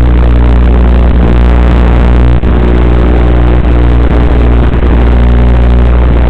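Loud steady electrical buzz at one fixed low pitch, the noise that an analog FPV camera link carries on its audio channel, with a brief dip about two and a half seconds in.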